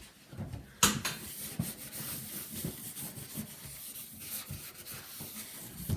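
Paper towel scrubbing and wiping the plastic computer case, an irregular rubbing with a sharp knock about a second in.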